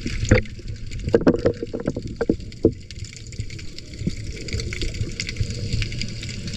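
Muffled underwater sound heard through a waterproof camera housing: a steady low rumble, with a run of crackling clicks about a second in that dies away before the three-second mark.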